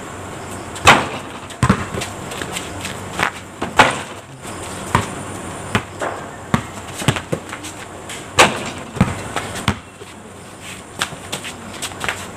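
Basketball bouncing on concrete, dribbled in an irregular run of sharp thuds, with the loudest impacts about a second in and again just past eight seconds.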